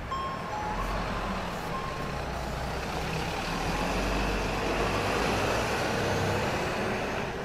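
Diesel city bus engine rumbling as the bus turns the corner and pulls away, growing stronger as it accelerates, with a few short high beeps in the first two seconds. The sound cuts off suddenly at the end.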